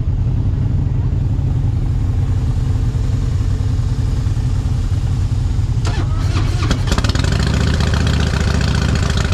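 Motorcycle engine idling with a steady low rumble. About six seconds in, a second motorcycle starts with a short crank and catches, and the two idle together in a heavier rumble.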